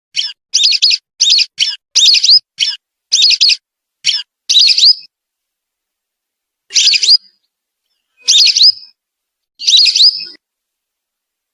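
Whistling duck (belibis) calls played as a lure recording: a quick run of about nine short, shrill whistled calls with rising notes, then three longer calls about a second and a half apart.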